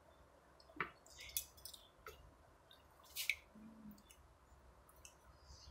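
Faint mouth sounds of a person chewing food: scattered wet clicks and smacks about a second apart, the loudest about three seconds in, with a brief low hum shortly after.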